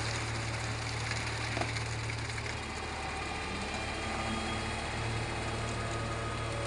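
Concrete mixer truck's diesel engine running steadily as the drum turns to discharge concrete down the chute, with the engine note shifting a few seconds in.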